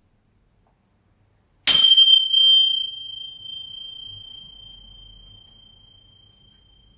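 A small metal object struck once about two seconds in, ringing one clear high tone that fades slowly over about five seconds, with a brief bright clang at the strike.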